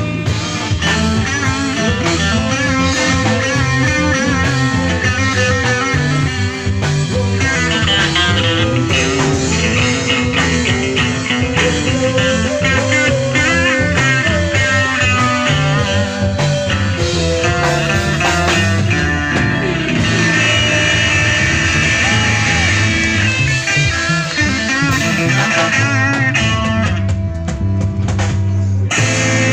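A rock band playing live: electric guitars, one playing a lead line with bent, wavering notes, over bass guitar and drum kit, with no singing.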